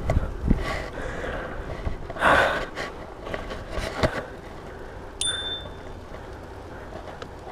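A handlebar bicycle bell rings once about five seconds in: a single bright ding that dies away in about half a second. Under it run wind on the microphone and the rumble of the bike rolling on pavement, with a few knocks.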